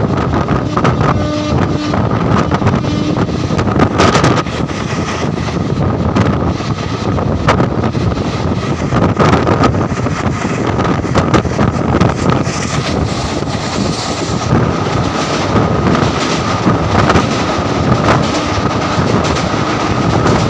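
Passenger train running at speed, heard from an open coach doorway: a steady rumble of wheels on rails with wind buffeting the microphone, a thin steady whine, and scattered sharp clicks.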